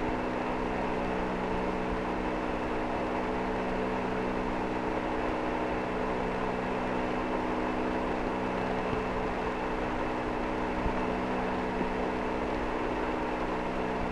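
Steady hiss with a constant low, multi-toned hum from the Apollo 12 air-to-ground radio link, an open channel between transmissions with no voice on it.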